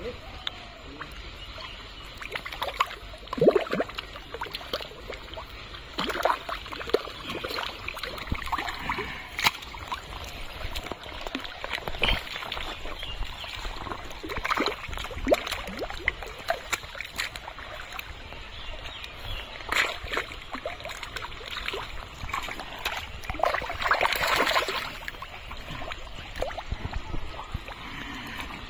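Thick muddy water sloshing and splashing irregularly as a person wades waist-deep and gropes through it by hand. One longer, louder stretch of sloshing comes near the end.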